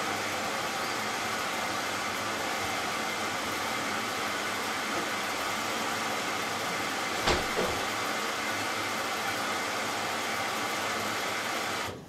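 Hoover Dynamic Next washing machine taking in water for the prewash: a steady rushing hiss with a faint hum, while the drum stays still. There is a single thump about seven seconds in, and the fill cuts off suddenly near the end.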